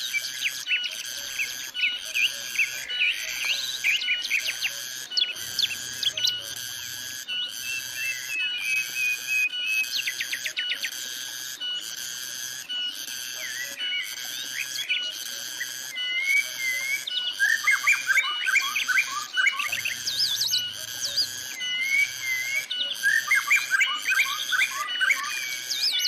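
Cicadas singing in a steady pulsing buzz that repeats a little more than once a second, with birds calling over it: sharp chirps and short whistles, a wavering whistled phrase twice in the second half, and bursts of rapid chattering notes, the loudest parts, about two-thirds of the way through and near the end.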